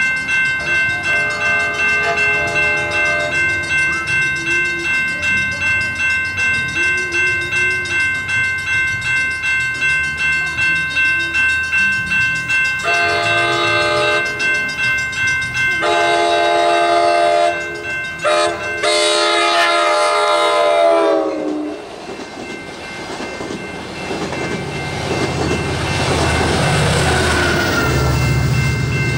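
A grade-crossing warning bell rings steadily at about two strikes a second while the train horn sounds the crossing signal: two long blasts, a short one, then a long blast whose pitch drops as the train goes by. The passenger train then rushes past, wheels rumbling over the rails.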